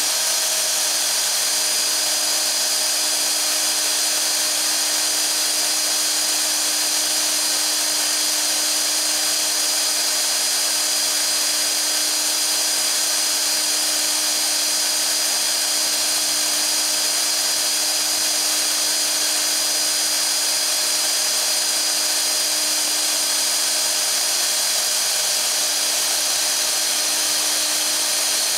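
Festool OF 2200 plunge router running steadily at full speed, an even motor whine with no change in pitch.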